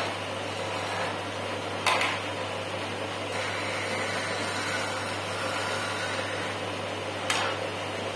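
Wood lathe running with a steady hum while a hand turning tool cuts the spinning wooden chess piece, giving a continuous scraping hiss. Two short sharp clicks come about two seconds in and again near the end.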